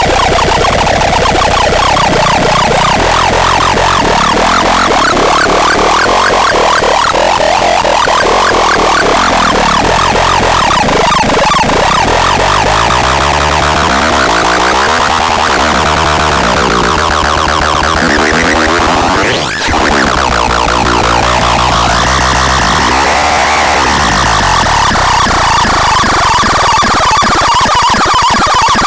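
Harsh electronic noise music: dense synthesizer tones sweeping up and down in pitch like sirens, with a brief drop about twenty seconds in.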